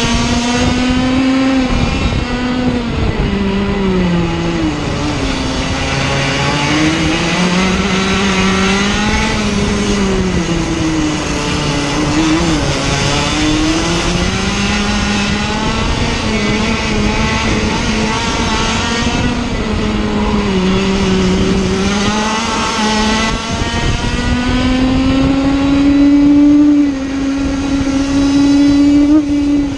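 Onboard sound of a Sirio TT85 100cc two-stroke kart engine racing flat out. Its pitch falls through the corners and climbs again on the exits several times over, reaching its highest late on the straight before dropping sharply at the very end.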